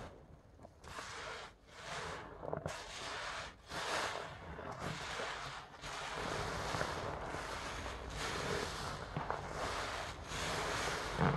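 Soap-soaked sponge squeezed and kneaded by gloved hands in a basin of thick foam: wet squishing with crackling lather, swelling and easing with each squeeze.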